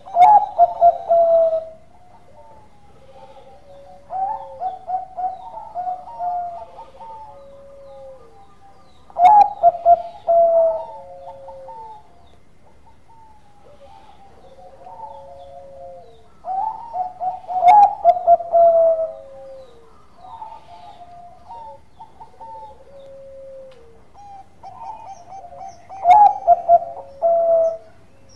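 A Bangkok-line zebra dove (perkutut) singing its cooing song. A loud run of quick notes comes four times, about every eight seconds, and softer drawn-out coos that fall in pitch fill the gaps between.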